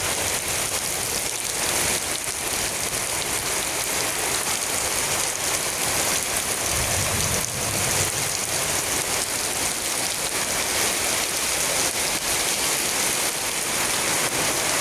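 Heavy rain falling steadily on surfaces, a dense even hiss of drops.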